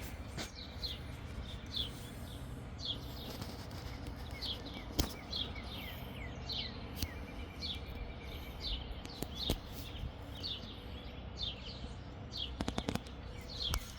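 Small birds chirping in short, repeated falling calls over a faint steady hum. There are a few sharp clicks, with a quick cluster of them near the end.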